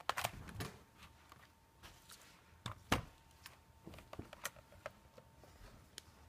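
Scattered clicks and light knocks of a plastic laptop case being handled and opened up, the loudest about three seconds in.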